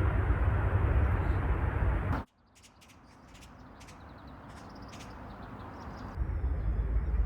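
Steady rumble of nearby road traffic that cuts off abruptly about two seconds in. Small birds chirp over a quiet background, then the traffic rumble returns near the end.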